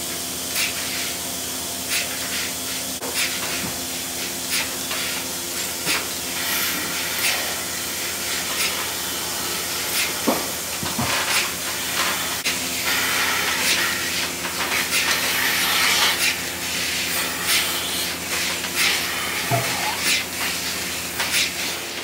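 Pipeline milking system running: a steady hiss of air with a low steady hum and irregular short clicks.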